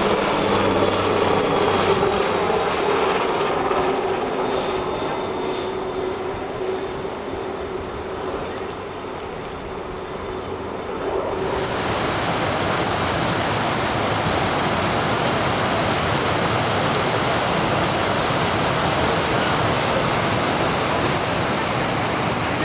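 A helicopter flying past with a high turbine whine and a lower rotor tone, both dropping slightly in pitch as it goes by. About halfway through, this cuts off abruptly to a steady rushing noise.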